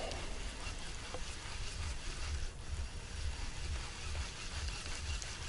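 Wind buffeting the microphone outdoors: a low, uneven rumble under a steady hiss.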